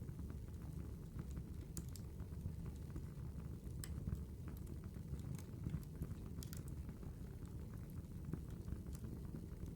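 Campfire crackling: scattered sharp pops and snaps over a steady low rumble of the fire.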